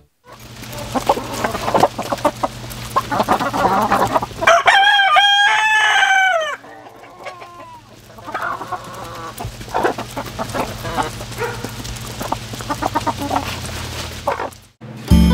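A flock of chickens clucking and calling, with one long crow of about two seconds, starting around four and a half seconds in, that falls in pitch at the end.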